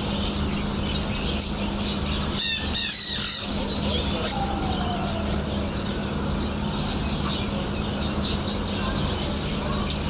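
Many caged budgerigars and other small cage birds chirping and chattering together, with a cluster of brighter repeated calls about three seconds in, over a steady low hum.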